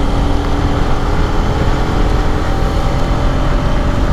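Bajaj Pulsar RS200's single-cylinder engine running at a steady cruising speed, its even note half buried under heavy wind rush and buffeting on the microphone.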